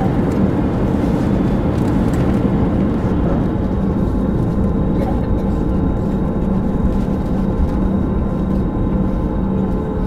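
Inside the cabin of an Airbus A320 taxiing, its wing-mounted CFM56 jet engines running at idle: a steady hum over an even low rumble.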